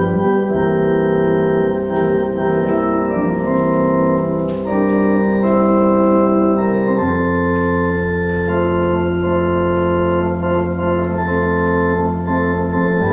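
Organ playing slow sustained chords over a held low bass note, the chords changing every second or two.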